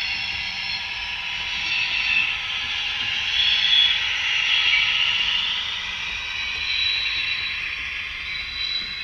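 HO-scale model train running past, its coaches' small metal wheels rolling on the model track as a steady rushing noise that swells and eases, with faint high squealing tones near the end.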